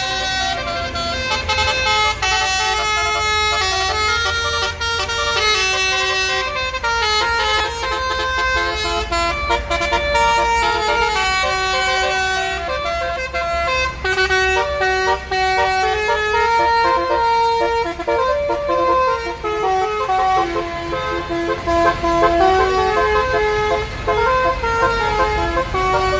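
Roof-mounted Basuri multi-tone telolet horns on a tour bus playing a long melody of held notes that step up and down, with the bus's engine running low beneath.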